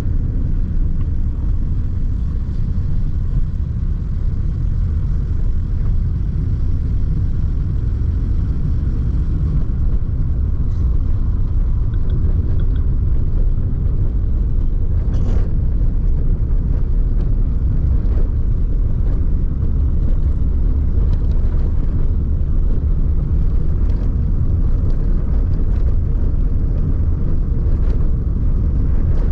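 Steady low rumble of a vehicle driving along a wet road, with tyre and road noise.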